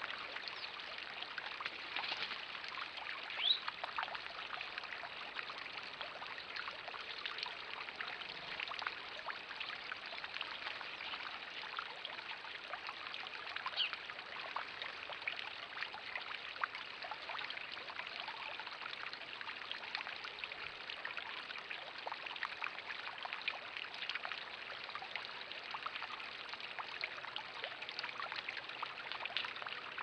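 Small garden-pond waterfall and fountain running, water splashing and trickling steadily into the pond. One brief, louder high blip comes about three and a half seconds in.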